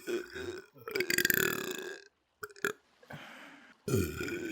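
A person belching repeatedly: a couple of short burps, then a long drawn-out belch about a second in, and after a breathy pause another long belch starting near the end.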